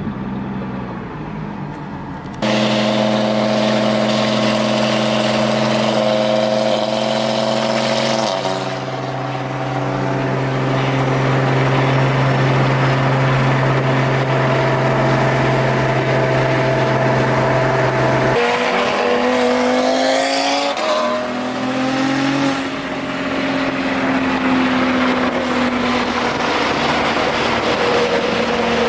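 A car engine drones at a steady pitch. About two-thirds of the way through, the revs climb and then settle back to a steady drone.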